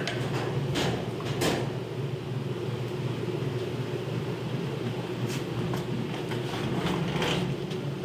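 Homemade top-loading washing machine running: a steady electric motor hum under the swishing of water and clothes churned by the agitator, with a few short, louder swishes.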